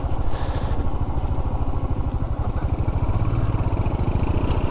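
Motorcycle engine running steadily while riding, a fast, even low pulsing.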